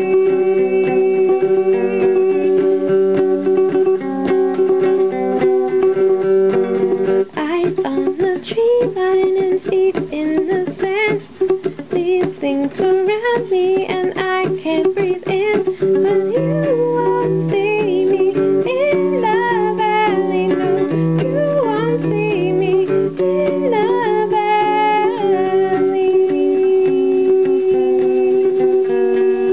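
Music: plucked guitar-like strings over a steady held drone, with a wavering melody line that comes in about seven seconds in and drops out near the end.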